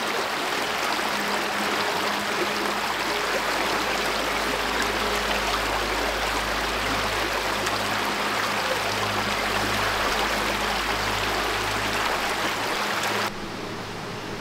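Shallow creek running over rocks, a steady rush of water. It cuts off sharply near the end, giving way to a quieter steady hiss.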